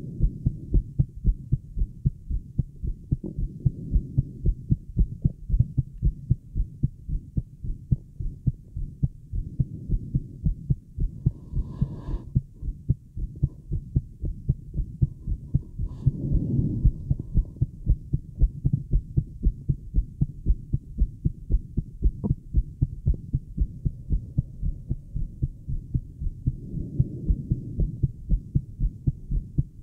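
A woman's fast heartbeat heard through a Littmann acoustic stethoscope on her chest: a steady, quick run of low thuds. Two brief louder noises break in about twelve and sixteen seconds in.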